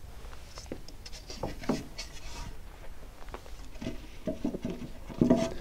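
Wooden tongue-and-groove planks being lifted and laid on a hard floor: a string of light wooden knocks and scrapes, with a louder knock near the end.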